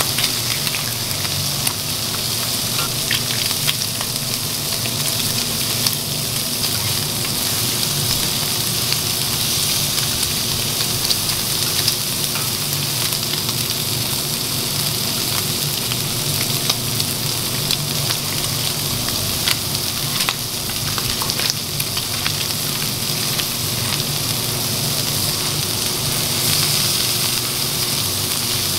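Food frying on a flat-top griddle: a steady sizzle with occasional sharp ticks.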